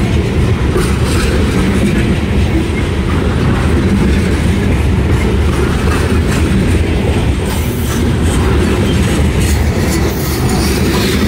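Loaded covered hopper cars of a freight grain train rolling past close by: a steady, loud rumble of steel wheels on the rails, with occasional clacks.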